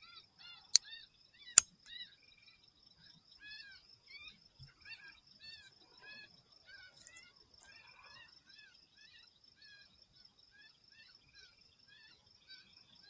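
A bird's short arched chirps, repeating about twice a second and growing fainter, over a steady high insect trill. Two sharp clicks come about one and one-and-a-half seconds in.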